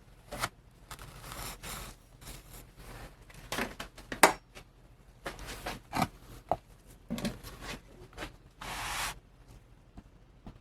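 Hand work on casting sand in a mold flask: a string of irregular scrapes, rustles and sharp knocks, with one longer scrape near the end.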